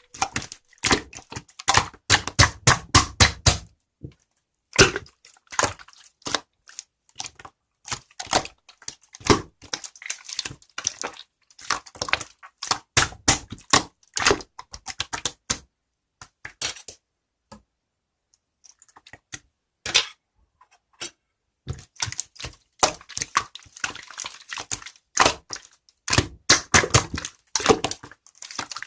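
Slime being squeezed, stretched and folded by hand, making rapid sticky clicks and small air-bubble pops in bursts, with a few mostly quiet seconds past the middle.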